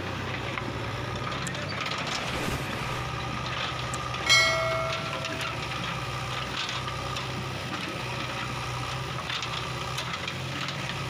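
John Deere 5045 D tractor's diesel engine running steadily while pulling a loaded trolley. About four seconds in, a sudden loud ringing tone cuts in and fades away within about a second.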